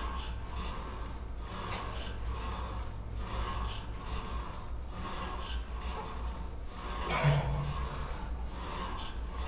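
Lat pulldown machine's steel cable running over its pulleys as the weight stack is pulled down and let back up, a rub that comes again every second or so, over a steady low hum. A brief louder noise about seven seconds in.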